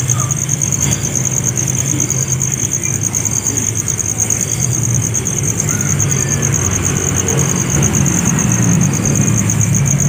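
A steady, high-pitched, rapidly pulsing insect trill over a low, steady motor-like rumble, with faint short chirps repeating about every two-thirds of a second.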